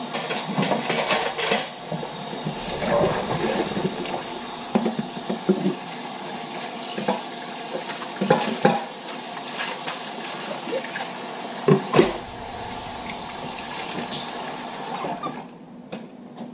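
Kitchen tap running steadily, with dishes and cutlery clattering and knocking against each other. The running water stops near the end.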